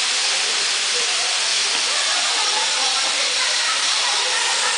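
A steady, loud hiss with no break or change, with faint voices under it.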